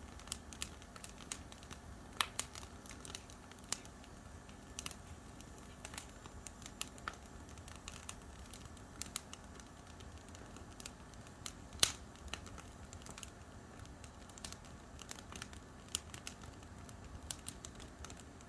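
Oak-wood campfire crackling, with irregular sharp pops over a low hiss; one pop about twelve seconds in is much louder than the rest.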